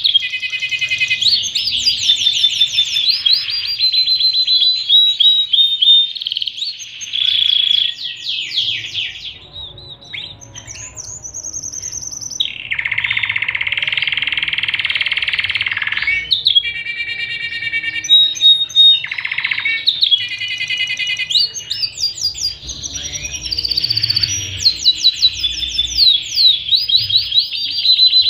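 Domestic canary singing a long, varied song of rapid trills and quickly repeated chirps. Near the middle it gives a dense buzzing roll lasting about three seconds.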